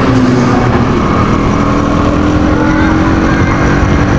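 KTM 200 Duke's single-cylinder engine running as the motorcycle rides along, its pitch rising slowly as it gathers speed.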